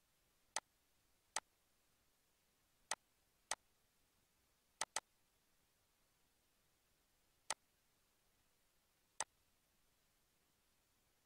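Computer mouse button clicking: eight short, sharp clicks spread over about nine seconds, one of them a quick double-click about five seconds in.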